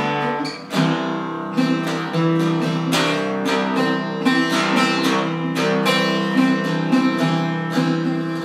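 Handmade F-style mandocello played with a pick: a steady run of picked notes and strummed chords, a new one about every half second, each ringing on into the next with a good sustain.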